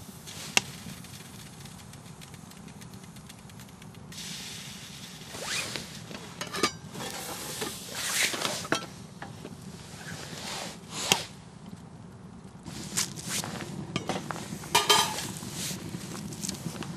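Metal cookpots and lids clinking and scraping as they are lifted and set down on a small wood stove: scattered sharp clinks and short scrapes, clustered in the middle and near the end.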